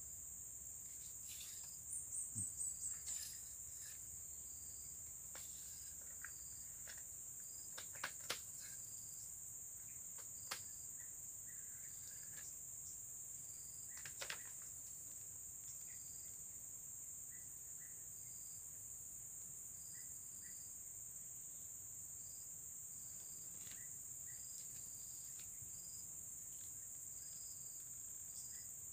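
Steady, shrill chorus of insects such as crickets or cicadas, with a fainter pulsing call beneath it. A quick run of about five soft clicks comes about two seconds in, and a few single clicks follow later.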